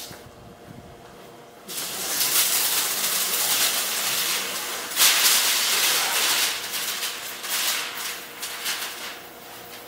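Spray bottle spraying liquid onto plastic window film in hissing bursts. It starts about two seconds in, is loudest around the middle and tails off near the end.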